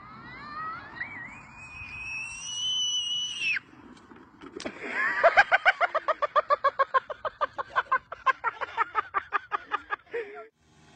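A child's long, shrill scream rising in pitch, cut off about three and a half seconds in, then a short crash as a small bike hits a muddy puddle. Then high-pitched laughter in quick, even bursts, about five a second, for several seconds.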